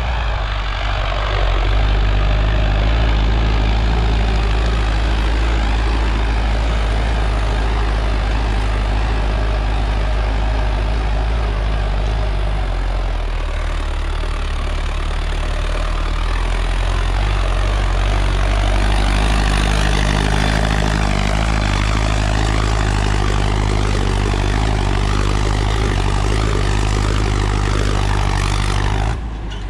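Sonalika DI-750 III tractor's diesel engine running steadily under load in high-range third gear while pulling a disc harrow through the soil. The engine note dips a little around the middle and then picks back up.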